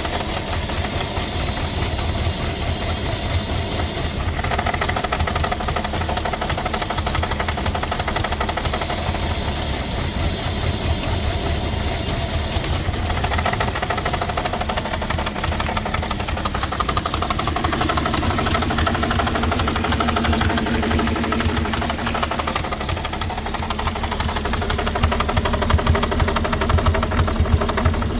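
2006 Porsche Cayenne's 3.2-litre V6 petrol engine idling unevenly, just after a cold start. A thin high whine comes in twice for about four seconds each. The owner suspects a misfire and a vacuum leak.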